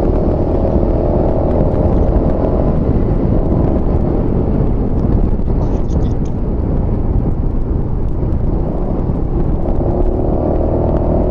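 Honda Forza 250 scooter's single-cylinder engine running steadily while riding, with a dense low rumble of wind and road noise.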